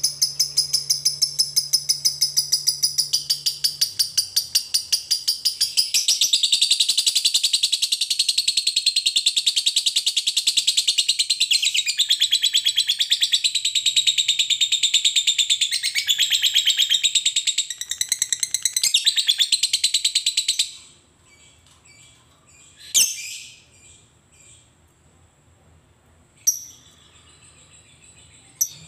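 Fischer's lovebird singing a long 'ngekek' trill: a fast, unbroken run of high, sharp chirps that lasts about twenty seconds and stops abruptly. Two single short calls follow.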